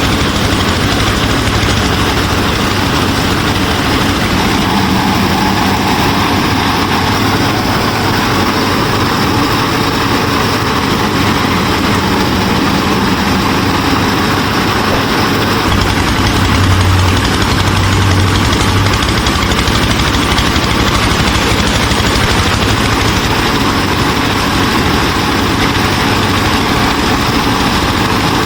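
An engine running steadily: a continuous mechanical drone with a low hum that swells briefly a little past the middle.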